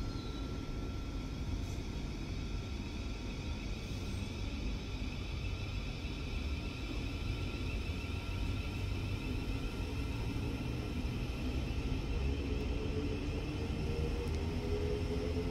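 Bombardier CR4000 tram approaching along the track: a steady low rumble that grows slightly louder, with a motor whine rising in pitch near the end.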